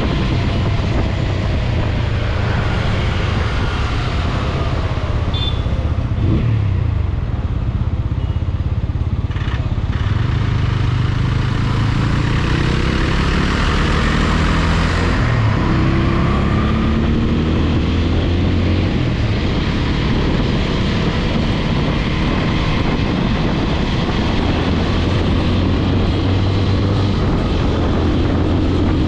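TVS Apache RTR 200 4V single-cylinder motorcycle engine running under way, its pitch rising and falling with the throttle through the middle and holding steady near the end, over a constant rush of wind noise.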